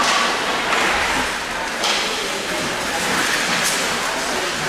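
Ice hockey skate blades scraping and carving across rink ice, a steady hiss, with two sharper sounds about two seconds and three and a half seconds in.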